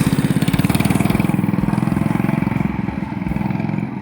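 212cc single-cylinder four-stroke engine of a Coleman CT100U mini bike running at a steady speed under easy riding, with a fast, even firing pulse, fresh from a rebuild with a billet connecting rod and flat-top piston and being broken in. It grows fainter over the last second or so.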